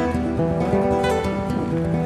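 Background music: acoustic guitar, plucked and strummed, with held notes and a few sliding notes.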